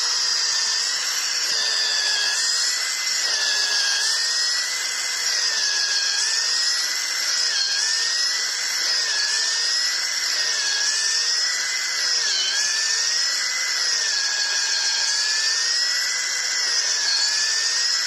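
Cordless drill with a 12 mm bit boring a tap hole into a birch trunk. The motor whines without a break, its pitch sagging and recovering every second or two as the bit loads up in the wood.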